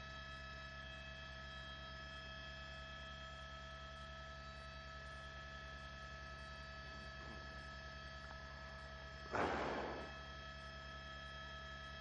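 Steady electrical mains hum with several steady tones over it. A short burst of noise about nine and a half seconds in is the loudest sound.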